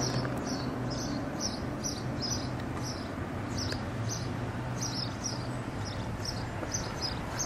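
A short high chirp repeating about three times a second, from a small bird or insect, over a steady low hum and background noise.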